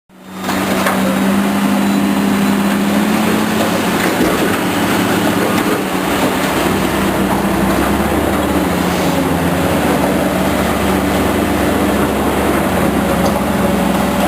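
Heavy construction machinery working, its engines running with a steady low drone and broad mechanical noise.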